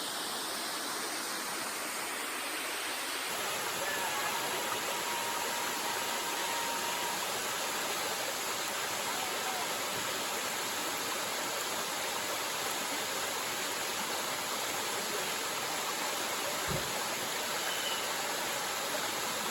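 Reedy Creek Falls: water pouring over the falls in a steady, unbroken rush.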